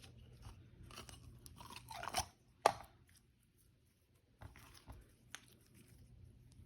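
Slime being squished and worked in the hands, with crackling, clicking and popping sounds. The loudest is a single sharp pop about two and a half seconds in.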